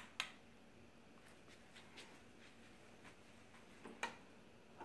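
Near silence with a few faint, sharp clicks of small plastic toy pieces being handled and set down on a plastic toy grill, the clearest near the start and about four seconds in.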